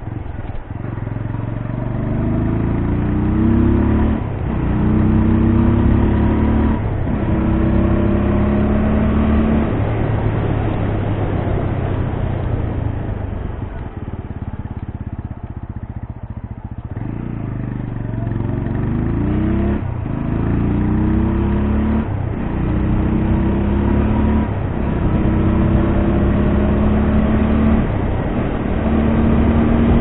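A TVS Apache RTR 200's single-cylinder engine with a deep bass exhaust note, heard from the rider's seat as it pulls up through the gears, with a short break at each shift. About halfway through it eases off and slows, then accelerates through several gears again.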